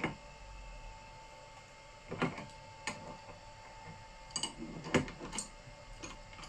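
Steel spanners clinking and knocking against each other and the CNC spindle's collet nut as it is loosened for a tool change. There are about half a dozen sharp clinks, the loudest about five seconds in, over a faint steady hum.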